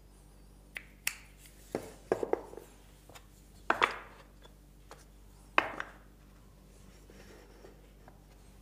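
Wooden parts knocking and clicking against a wooden frame as the pieces are handled and set in place: about ten irregular taps, the sharpest a couple of seconds in and again near four seconds in.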